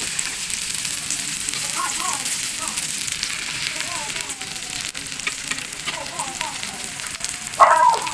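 Food frying in a pan, a steady sizzle. A short, louder pitched sound comes near the end.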